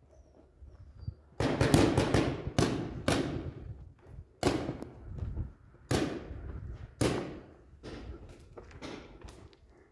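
Paintball markers firing: a quick burst of several shots about a second and a half in, then single shots about a second apart, growing fainter near the end. Each shot echoes off the walls of a large empty brick hall.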